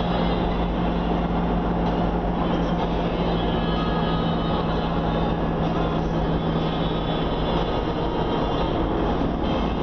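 Vehicle driving on a paved road, heard from inside: steady engine and road noise, with a low steady hum that drops out about eight seconds in.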